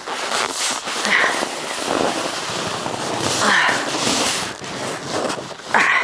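Footsteps crunching and squeaking through deep, cold, dry snow in an irregular trudge, loud and close.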